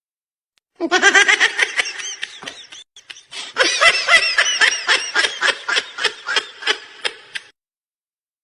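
A high-pitched, rapid snickering laugh sound effect: quick pulses of laughter, about six a second, in two runs with a short break about three seconds in, each run fading away.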